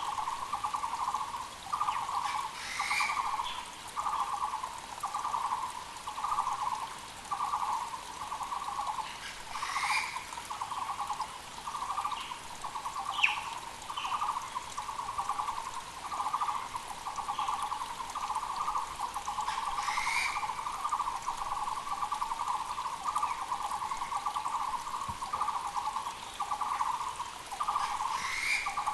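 Taiwan barbet (Muller's barbet) calling without pause: a fast, throaty trill repeated over and over in short units. Another bird gives a brief higher call about every eight seconds, over the faint rush of a mountain creek.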